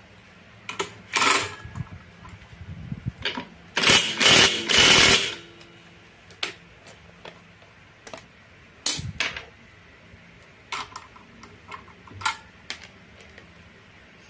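Cordless impact wrench run on the Honda Scoopy's CVT clutch nut: a short burst about a second in, then a longer, louder burst from about 4 to 5 seconds. Scattered metal clicks and clinks of the socket and tools follow.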